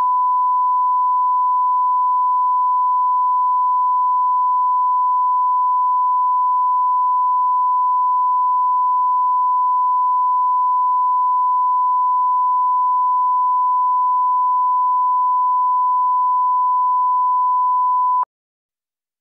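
Steady 1 kHz line-up test tone accompanying colour bars at the head of a broadcast tape: one unbroken pure tone that cuts off suddenly near the end.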